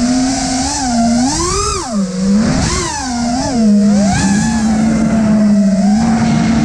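Brushless motors (Flywoo 2306, 2450 kv) and three-blade Gemfan Hurricane props of a five-inch FPV freestyle quadcopter whining, as heard from the GoPro mounted on it, with a rushing hiss of air. The pitch swoops up and down with throttle punches through the first four seconds, then holds steadier.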